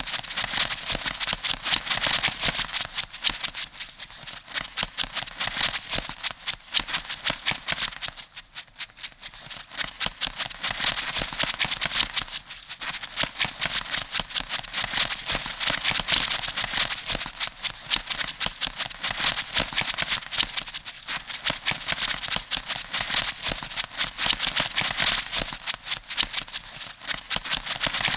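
Crab sound effect: a continuous, dense stream of rapid dry clicking and rattling, thinning out briefly twice.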